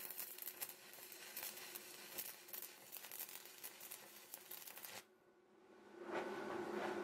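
Stick (arc) welding: the electrode's arc crackling steadily, stopping about five seconds in and striking up again about a second later.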